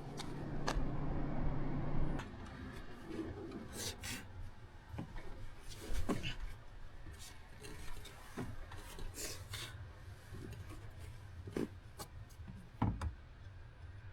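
A steady low hum that stops about two seconds in, followed by scattered scrapes, rubs and knocks of hands working around the vehicle.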